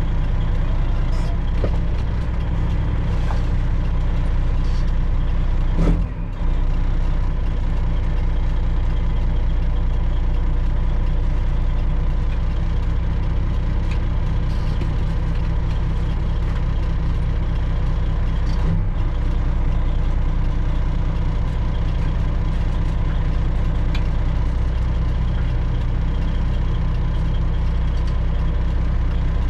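Semi truck's diesel engine running steadily at low revs, with a sharp knock about six seconds in and another near nineteen seconds.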